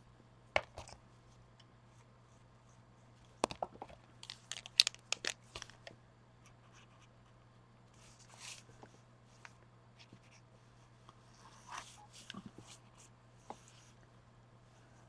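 Scattered light clicks and knocks, with a few soft rustles, from collage craft materials being handled and set down on a work table, over a steady low hum. The densest run of clicks comes a few seconds in.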